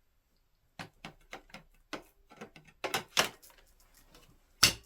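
Hard plastic parts of a Shark vacuum cleaner being handled and fitted: a run of separate clicks and knocks, with the loudest, sharpest knock near the end.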